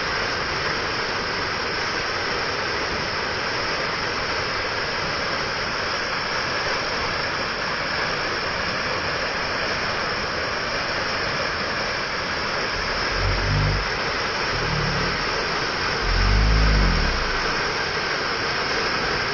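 Waterfall rushing steadily, with two brief low rumbles about two-thirds of the way through and near the end.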